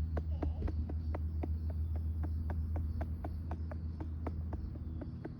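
Rhythmic light patting on the back of a RealCare infant simulator doll to burp it, about four taps a second, over a steady low hum.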